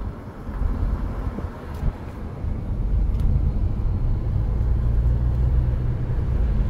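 Car engine and road noise heard from inside the moving car, a steady low drone that grows louder about two and a half seconds in.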